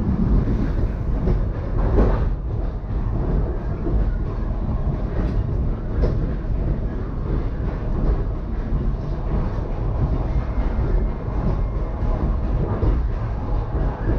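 Passenger train running along the track, heard from inside the carriage: a steady rumble with a few faint knocks from the wheels and rails.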